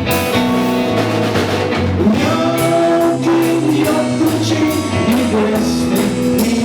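Rock song playing in an instrumental passage between sung lines: a band with guitar, bass and drum kit holding sustained chords over a steady beat.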